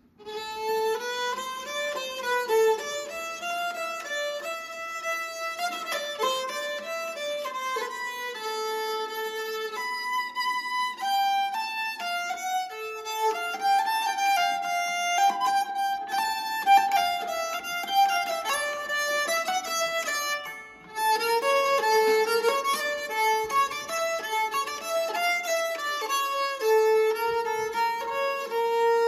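Nyckelharpa, the Swedish keyed fiddle, bowed to play a tune in a run of stepping notes, with a short break about two-thirds of the way through.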